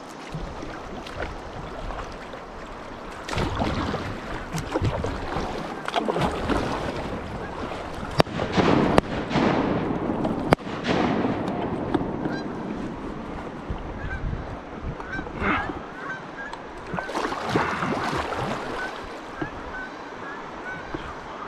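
Canada geese honking, a run of short, repeated honks in the second half. Water and wind noise run underneath, with two sharp knocks near the middle.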